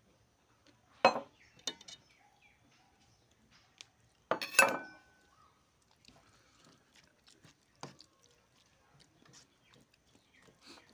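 Stainless steel bowl clinking against a steel plate twice, about a second in and around four and a half seconds, the second with a short metallic ring. Then faint soft sounds of fingers mixing rice and curry on the plate.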